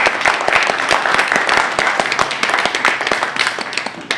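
Audience applauding: many hands clapping densely and evenly, thinning out and fading near the end.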